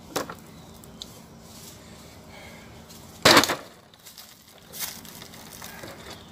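A machete blade strikes a water-filled plastic bottle once, a short, sharp whack a little over three seconds in. Just before, a light knock as the bottle is set down on concrete, and a softer clatter near five seconds as the bottle is handled.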